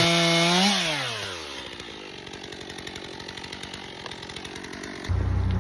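Small gas engine running at speed, then winding down in a falling pitch about a second in. A few seconds of quieter faint rattling follow. Near the end a loud low engine drone starts abruptly.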